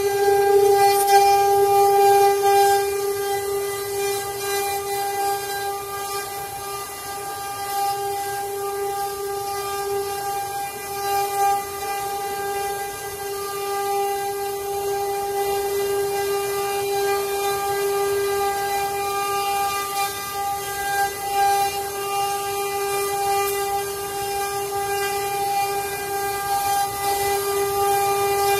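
Six-spindle CNC wood carving router running, its spindles whining at one steady pitch with a noisy hiss of the bits cutting wood underneath.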